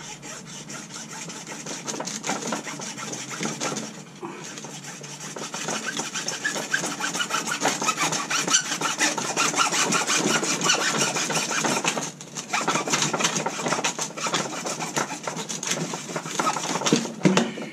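Hand saw cutting through PVC pipe in quick back-and-forth strokes, with a short break about four seconds in and another about twelve seconds in.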